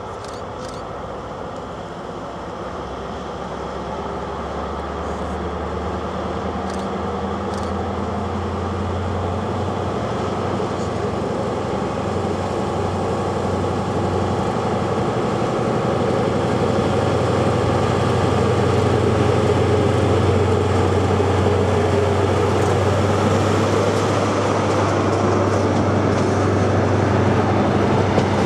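Class 43 HST power car's diesel engine running with a steady low note, growing steadily louder as the InterCity 125 draws near at low speed and passes. Near the end the passing coaches add a few faint wheel clicks.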